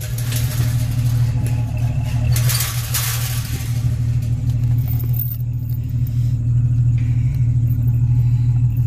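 A steady low engine hum runs throughout, under two bursts of rustling, one in the first second and another from about two and a half to three and a half seconds in.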